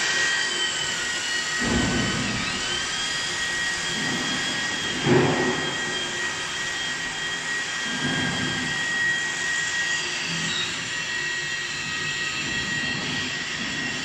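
C0636A bench lathe running: a steady high whine from its motor and spindle drive over a noisy hum, the pitch dipping briefly about two seconds in. A few dull low bumps sound, the loudest about five seconds in.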